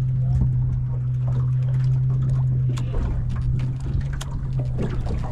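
Electric trolling motor humming steadily at one pitch, with scattered light clicks and taps and a low rumble underneath.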